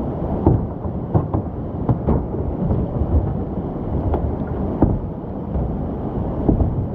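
Rushing whitewater and wind buffeting the microphone, a steady rumbling noise, with about eight short sharp splashes or knocks scattered irregularly through it.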